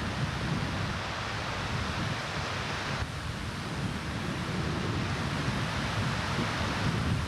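Floodwater of a swollen creek rushing past in a steady roar, with a low churning rumble and some wind on the microphone.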